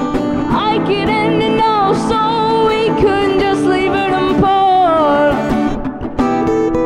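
Two acoustic guitars strummed under a teenage boy's singing voice holding a wavering melody line. The singing ends a little over five seconds in and the guitars carry on alone with strummed chords.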